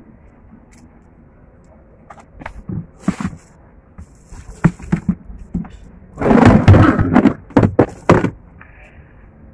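A cooler lid being opened and handled: a run of knocks and thuds with some scraping. The loudest and busiest stretch comes a little past the middle.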